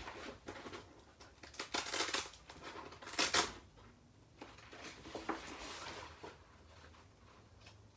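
Rustling and handling of a large black cover as it is fitted around the base of an animated doll prop. The two loudest rustles come about two seconds and three seconds in, followed by quieter handling noises.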